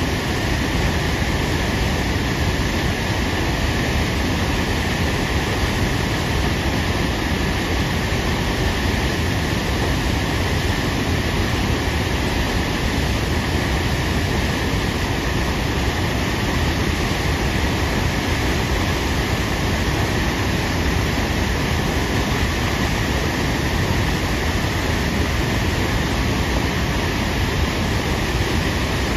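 Tahquamenon Falls' Upper Falls, a wide curtain of river water pouring over a ledge into the plunge pool: a steady, unbroken rush.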